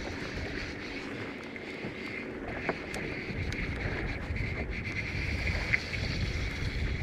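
Wind buffeting the microphone over a small boat drifting on choppy sea, a steady low rumble with a few faint ticks.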